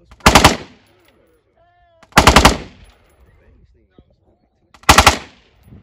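Full-auto AR-15 rifle firing three short bursts of a few rounds each, about two seconds apart, each burst followed by a brief echo.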